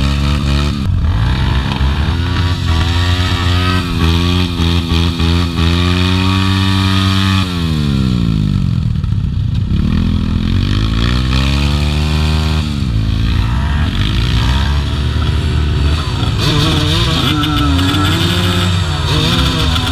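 Motorcycle engine revving: the pitch climbs over several seconds and falls sharply about seven seconds in, climbs again and falls at about thirteen seconds, then goes on in shorter, uneven revs.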